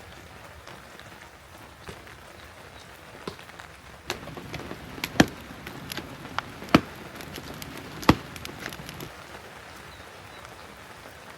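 Steady rain falling, with a handful of sharp knocks in the middle; the loudest three come about a second and a half apart.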